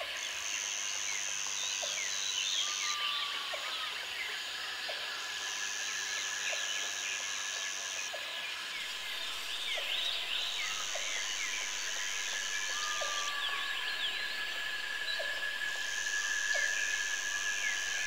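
Nature ambience of insects and birds: a high insect buzz switches on and off about every two and a half seconds over a steady thin insect trill, with scattered short bird chirps and a small call repeating about once a second.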